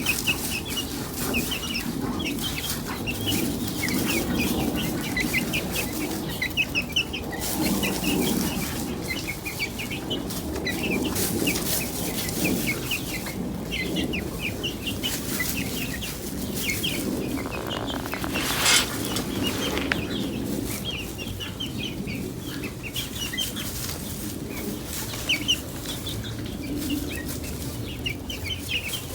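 A flock of chickens clucking, with many short high chirps scattered throughout. There is a brief rustling burst a little past the middle.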